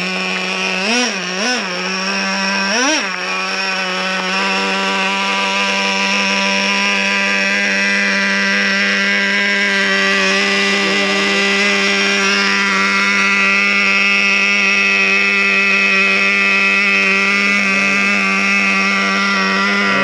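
Traxxas Revo 3.3's two-stroke nitro engine running during break-in. It revs up briefly three times in the first three seconds, then holds a steady high pitch.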